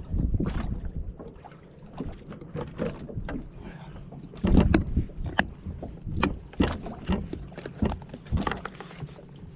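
Small fishing boat on open water: irregular slaps and knocks of waves against the hull, with low gusts of wind on the microphone that are stronger at the start and about halfway through.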